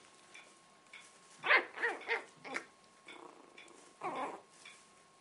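A puppy giving short high-pitched yips: four quick ones about a second and a half in, then a longer one around four seconds.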